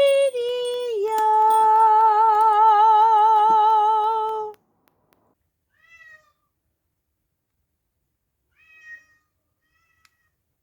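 A singing voice holds one long high note with a steady vibrato, which stops abruptly about four and a half seconds in. After it come two faint, short cat meows.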